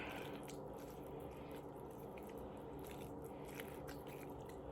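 Homemade glue-and-liquid-starch slime being squished and kneaded by hand, giving faint, irregular sticky clicks and squelches. The slime is still stringy and not yet fully set.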